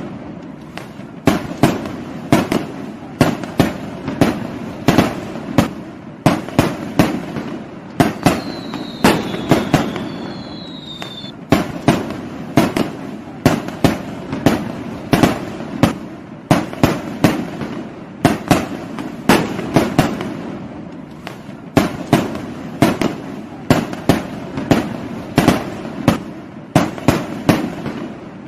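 Fireworks and firecrackers going off in a continuous barrage of sharp, irregular bangs, several a second, with a low rumble between them. A high, slightly falling whistle runs for about three seconds starting about eight seconds in.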